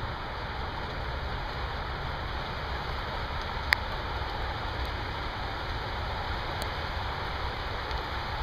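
Steady heavy thunderstorm rain falling, with one sharp tick of a drop or hit a little under four seconds in.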